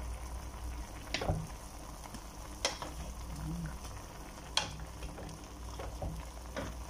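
A wooden spatula stirs a steaming chicken and vegetable stew in a metal pot, with the food hissing and bubbling. The spatula knocks sharply against the pot three times, with a few lighter taps near the end.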